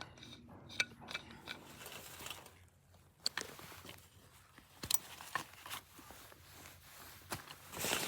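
Irregular small clicks and knocks with light rustling, like objects being handled, growing louder near the end.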